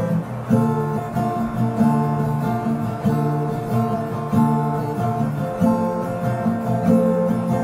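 Acoustic guitar with a capo strummed in chords, changing chord about every second.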